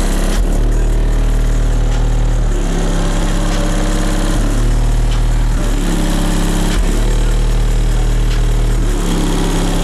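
Car audio system with subwoofers playing bass-heavy music loud. Long sustained bass notes change pitch every second or two over a constant deep rumble.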